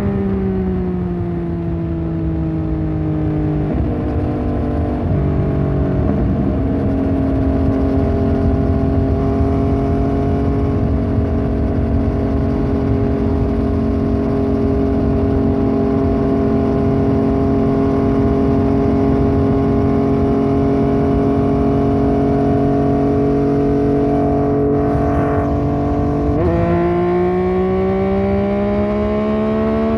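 Yamaha MT-09 Tracer's three-cylinder engine through a Fuse Racing aftermarket exhaust, heard from the rider's seat. The revs drop over the first few seconds, with gear changes around four and five seconds in, then hold steady at cruise for about twenty seconds, and near the end the engine note climbs as the bike accelerates.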